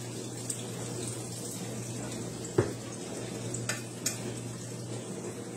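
Chicken broth pouring from a can into a slow cooker: a steady run of liquid, with a knock about halfway through and two light clicks soon after.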